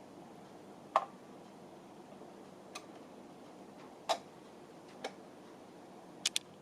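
Dual 1218 turntable's controls and mechanism clicking: about five sharp mechanical clicks, the last two in quick succession, as a start is tried. The turntable fails to start.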